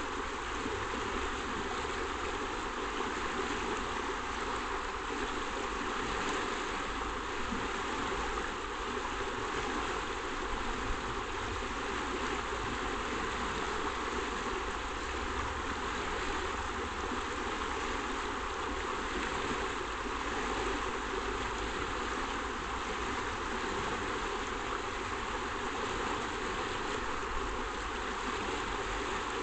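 Shallow river running fast over a stony bed, a steady, even rush of water that does not let up.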